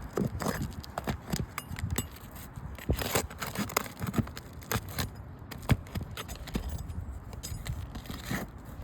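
Asphalt shingles being pried up with a metal roofing tool: irregular scrapes, clicks and crackles as the sealed tabs are broken loose.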